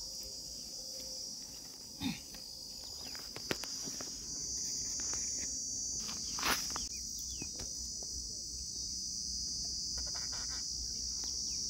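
Steady high-pitched chorus of insects buzzing in the grass, with a few brief knocks and rustles; the loudest comes about six and a half seconds in.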